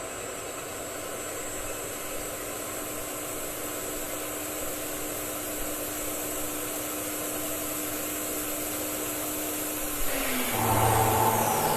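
CNC router running steadily with a constant whine. About ten seconds in, its pitch falls away as it slows, and a louder, lower hum takes over.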